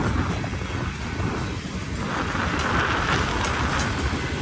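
Freight train cars rolling past on the rails: a steady low rumble with a hiss that grows a little louder in the second half.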